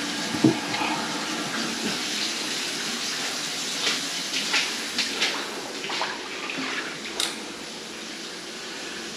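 Water running steadily, like a tap, under a sharp knock and a string of clicks and knocks from handled metal and tools. The running sound drops away near the end.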